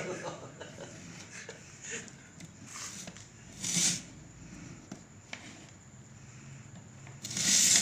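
Quiet handling sounds as dough is pressed around the rim of an aluminium cooking pot's lid to seal it. There are a few faint ticks and two short hissing noises, the louder one near the end.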